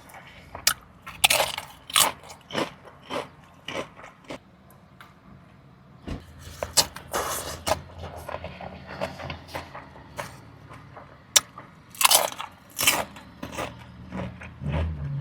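Close-miked biting and chewing of food: irregular crunches and wet mouth clicks, with a few louder bites near the end.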